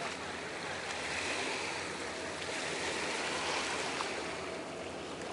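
Sea water washing against breakwater rocks, a steady rushing that swells and eases slowly, with a few faint ticks.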